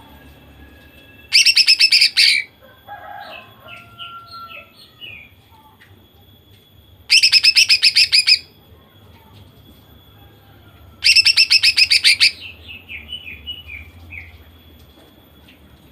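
Female greater green leafbird (cucak ijo) singing in the rapid-fire 'nembak' style: three loud rattling bursts of quick clicks, each about a second long, coming about a second in, about 7 s in and about 11 s in. Softer short chirps and whistles follow the first and last bursts.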